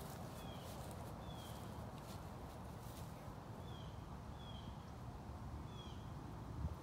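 A small bird giving short, high, falling chirps, five in all spread across a few seconds, over a steady low rumble.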